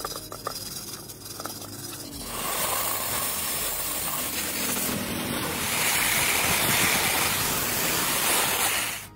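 Pressure-washer jet spraying water onto rusty air-compressor parts: a loud, steady hiss that starts about two seconds in and cuts off suddenly near the end. Before it, a few light knocks and scrapes of handling.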